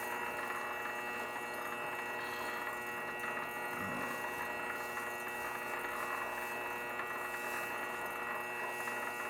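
Grizzly G0768 lathe running at slow speed: a steady hum with several held tones.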